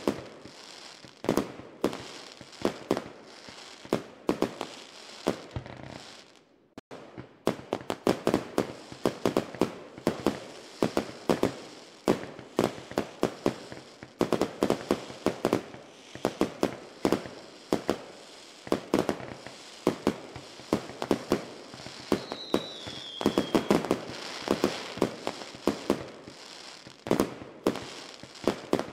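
Fireworks going off in a dense, irregular run of bangs and pops with crackle. There is a brief lull about a quarter of the way through, and a short falling whistle about three-quarters through.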